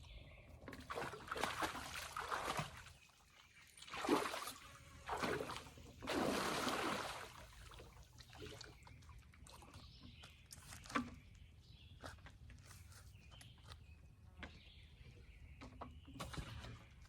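Water splashing and sloshing in several short bursts over a steady low hum.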